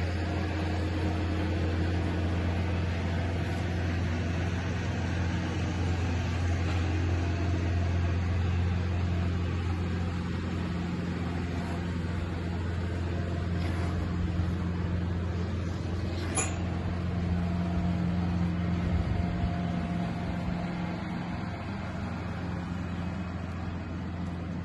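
A steady low mechanical hum, with one sharp click about two-thirds of the way through.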